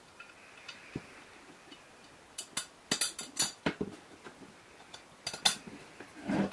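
Small metal parts (a steel bracket and screw) clinking and clicking against a plastic angle-grinder guard as they are fitted by hand: a run of sharp clicks around the middle, two more near the end, then a duller knock.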